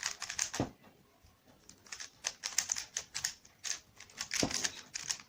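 Plastic clicking of a Rubik's cube being turned, many quick clicks in irregular clusters.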